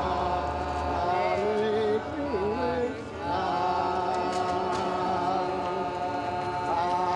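Music with a chanted vocal line held on long, slightly wavering notes. It dips briefly about two seconds in, where one voice slides down and back up in pitch.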